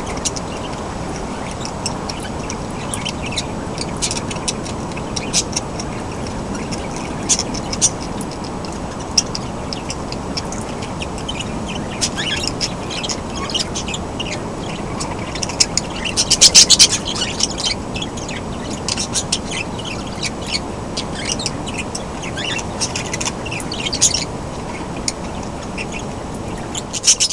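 Small pet parrots (budgerigars, cockatiels and kakarikis) calling: many short high chirps and chatter, with a louder burst of calls about sixteen seconds in, over a steady background noise.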